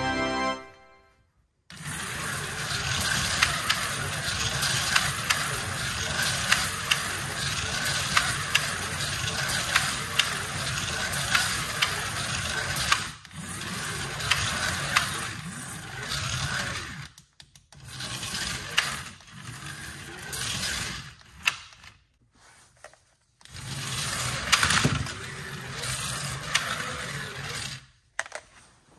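Electric slot cars running on a plastic figure-eight track: small motors whirring and the cars rattling and clicking in the slots. It runs in long stretches that cut out and start again several times as the hand-controller throttles are squeezed and released.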